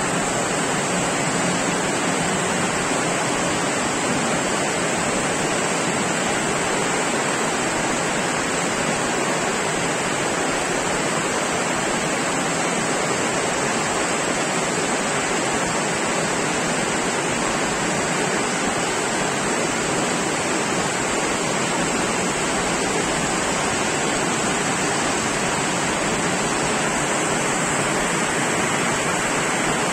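Torrential monsoon rain pouring down, an even, unbroken hiss that holds steady without a break.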